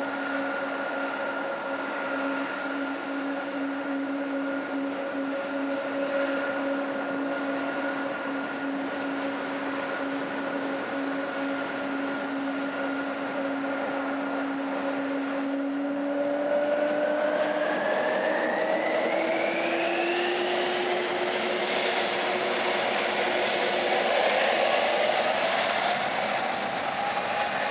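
Boeing 777's twin turbofan engines running with a steady whine, then spooling up for takeoff: from a little past halfway the whine climbs in pitch and the engine noise grows louder.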